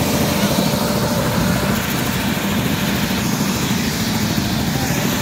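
Light turbine helicopter running on the ground with its main rotor turning: a loud, steady whine and rotor flutter.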